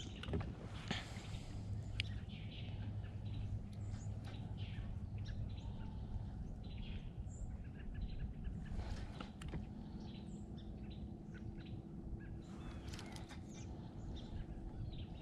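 Birds chirping here and there over a faint low steady hum, with a few light clicks in the first two seconds.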